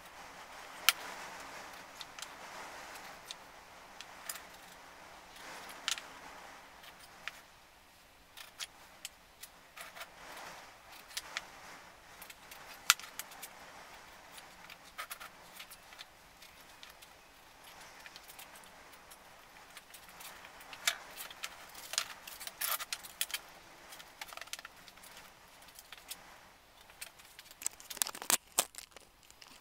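Elm wooden slats clicking and clattering against one another and the bench as they are handled and rearranged, in scattered sharp knocks with a cluster of louder ones near the end.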